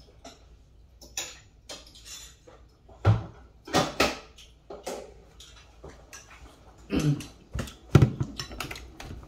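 Dishes and cutlery clinking and knocking in short, irregular bursts. The loudest knocks come near the end, as a ceramic bowl is set down on the table.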